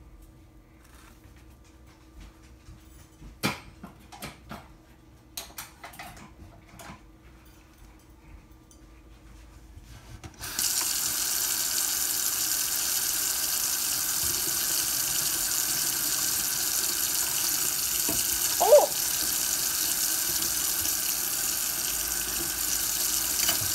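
Kitchen tap turned on about ten seconds in, water running steadily onto a metal sink basin by the drain, then stopping near the end. A few faint clicks and knocks come before the water, and there is a short rising squeak about three-quarters of the way through.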